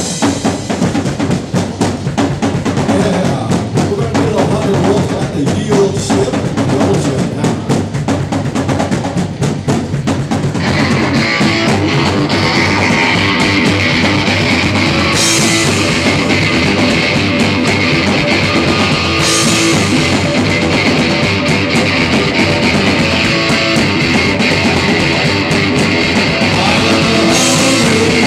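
Live rock band playing with a drum kit, bass and electric guitar: at first mostly drums and bass, then the full band with distorted electric guitar comes in about ten seconds in, with cymbal crashes.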